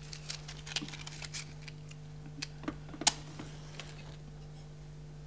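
Faint scattered clicks and taps of a match being struck and handled over a small metal dish of alcohol, with one sharper click about three seconds in. A steady low hum underneath.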